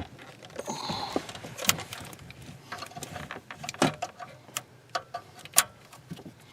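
Irregular plastic clicks and rustling as wiring harness connectors are handled and plugged into the back of a car stereo head unit, with a few sharper snaps among them.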